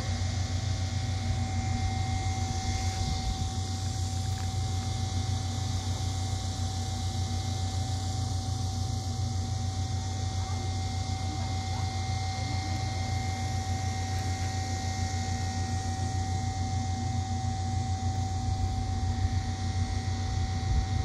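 A steady low mechanical drone with a constant whine running through it, over a faint high hiss.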